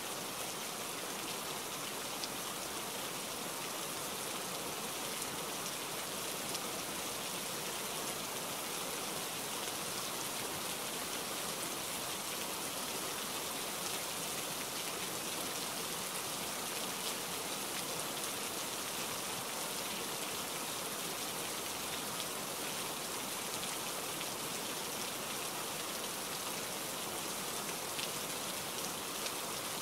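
Rain falling steadily: an even hiss with faint scattered drop ticks.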